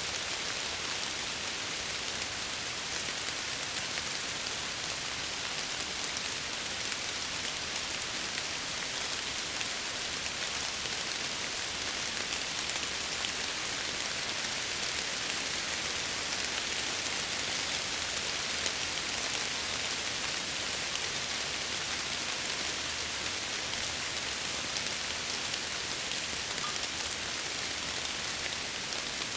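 Steady rain falling against window glass, an even, unbroken wash of drops with no changes in strength.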